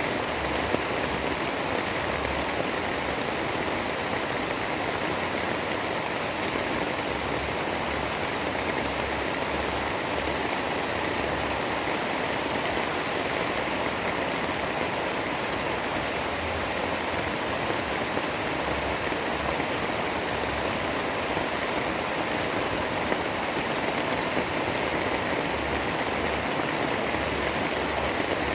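Steady rain, an even hiss of water with no break or distinct drops standing out.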